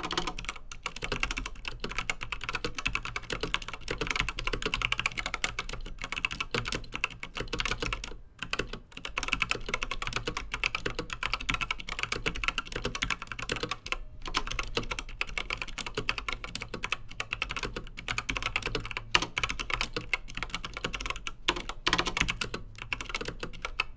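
Continuous fast typing on a WASD Code V2 mechanical keyboard with 67 g Zealio tactile switches, thick Gateron PBT keycaps and a steel plate. The keystrokes run as a dense clatter, with short breaks about eight and fourteen seconds in.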